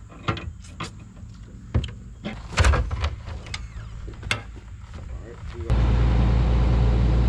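Metal clinks and clicks of a wrench working on hydraulic hose fittings on a bucket truck's bucket. Near the end, the bucket truck's engine and hydraulic system come in abruptly, running loud and steady with a low hum.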